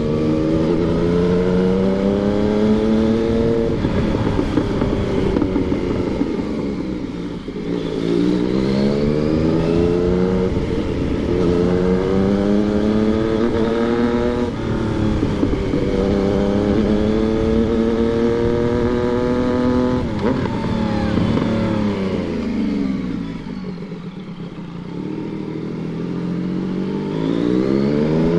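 Yamaha MT-09 motorcycle's three-cylinder engine accelerating hard through the gears, its pitch rising in each gear and dropping at each upshift. Later it falls away as the bike slows on a closed throttle, then rises again as it pulls away near the end.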